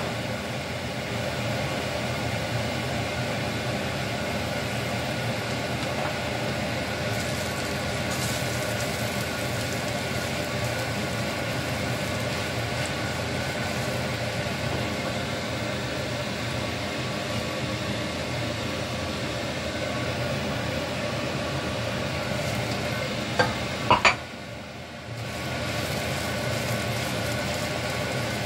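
Sliced red onions and garlic sizzling in oil in a nonstick frying pan, stirred with a spatula. Near the end there are three sharp knocks against the pan and a brief drop in the sizzle.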